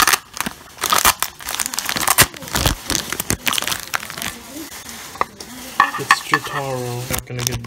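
Foil blind-bag wrapper crinkling and tearing as it is pulled open by hand, a dense run of irregular crackles that thins out near the end.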